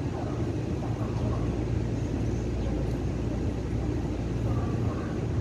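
Electric multiple-unit train approaching the station: a steady low rumble.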